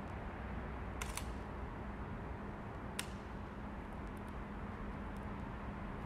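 Steady low background rumble with a faint hum, broken by a pair of sharp clicks about a second in and a single click near three seconds in.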